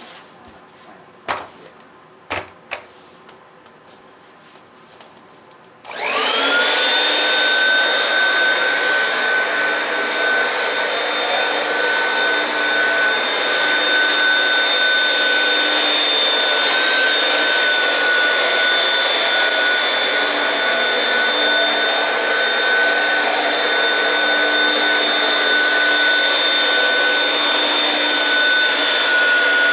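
A few sharp clicks, then a vacuum cleaner switches on about six seconds in, its motor spinning up in under a second and running steadily with a high whine.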